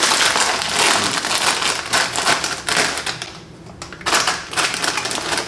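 Plastic crisp packet crinkling loudly as it is handled and turned over in the hands. The rustling eases off briefly near the middle and picks up again.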